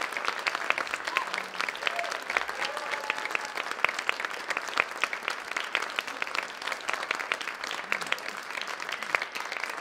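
Theatre audience applauding steadily, with a few voices whooping briefly about two seconds in.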